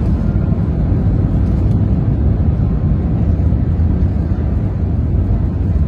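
Airbus A350-900 landing rollout heard from inside the cabin: a loud, steady low rumble of the airliner racing down the runway.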